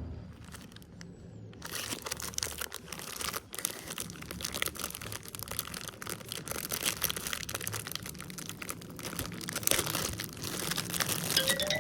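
Crinkling and crackling of packaging being handled, a dense run of small clicks that starts after a moment of near silence. Near the end a single tone begins gliding steadily upward.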